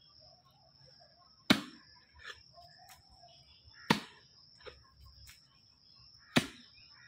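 A long-handled digging hoe chopping into soil three times, about two and a half seconds apart, each strike sharp and loud.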